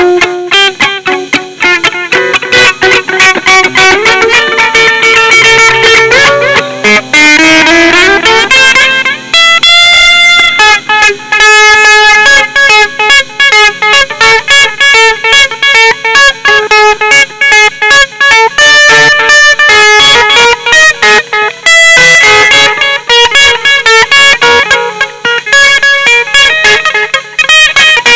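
Guitar-led rock song with electric guitar playing fast runs of notes, including a rising slide in pitch about seven to nine seconds in.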